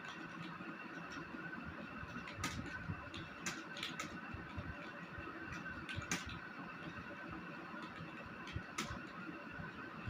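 A few irregular, sharp clicks of computer keyboard keys being pressed, spaced a second or more apart, over a steady hum of background noise.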